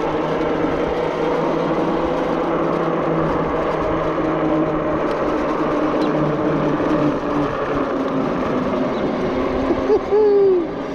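Zugo electric bike riding along at a steady speed: a steady hum from its electric motor over tyre and wind noise. A voice starts near the end.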